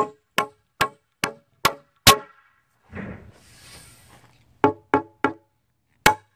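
Claw hammer driving nails through a wooden guide board into a cedar log, each blow ringing briefly. A run of six strikes at about two and a half a second, then after a pause three more and one last strike near the end.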